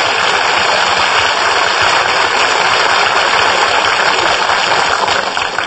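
Studio audience applause and laughter after a punchline, a long steady clapping that dies away near the end.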